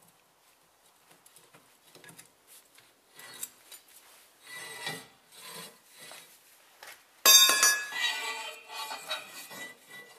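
Metal clinks and scrapes as a nail bar works on a Peugeot 206's rear anti-roll bar side plate and stud, with one sudden loud ringing clank of metal on metal about seven seconds in, followed by a few seconds of rattling.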